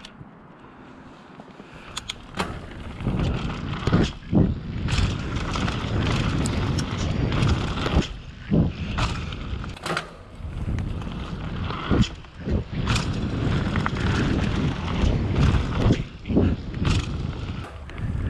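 Mountain bike ridden fast down a dirt jump trail, heard from a camera on the bike or rider: a steady rumble of tyres on dirt and the bike's rattle, broken by many sharp thumps from landings and bumps. Quieter for the first couple of seconds.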